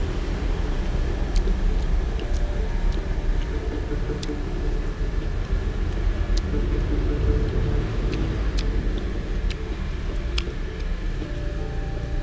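A metal spoon clinking against a glass plate as rice is scooped up, in sharp, scattered clicks, over a steady low rumble of road traffic.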